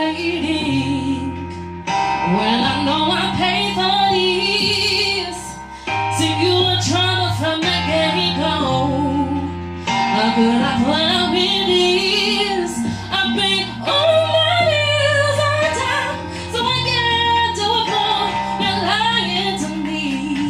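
Live band music: a woman sings a long, wavering melodic line with vibrato over instrumental accompaniment, with a low bass part that moves to a new note every couple of seconds.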